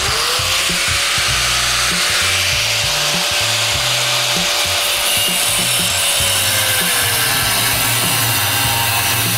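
Angle grinder with a cut-off disc running and cutting through a steel bracket on a motorcycle frame, a steady whine over a hiss. The pitch dips near the end.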